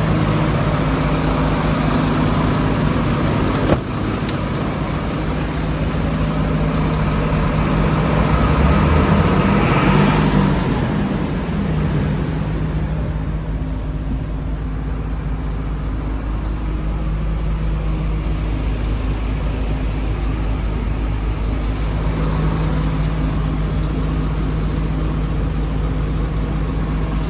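Mercedes-Benz Axor 2533 truck's diesel engine idling steadily. A sharp knock comes about four seconds in, and a louder swell rises and falls between about seven and twelve seconds.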